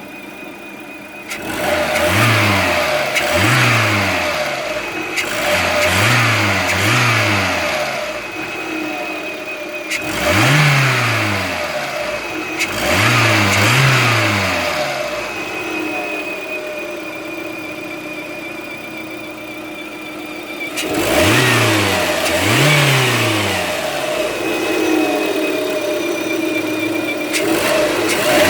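Lada Priora engine idling and revved in repeated short throttle blips, with a steady high-pitched whistle heard most plainly at idle between the revs. The whistle persists with the alternator belt removed and with a new timing belt and rollers fitted, so neither is its cause.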